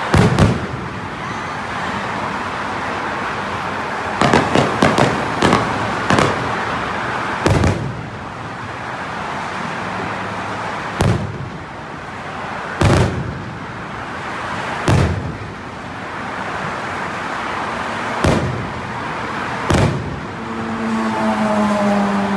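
Aerial fireworks shells bursting overhead: about a dozen sharp booms at irregular gaps, with a quick run of four or five a few seconds in. A low, steady drone starts near the end.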